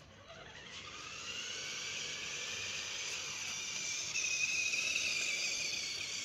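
Electric motor and gearbox of a toy RC monster truck whining as it drives. The whine rises in pitch over the first two seconds as the truck speeds up, then runs steadily and is loudest about four to five seconds in.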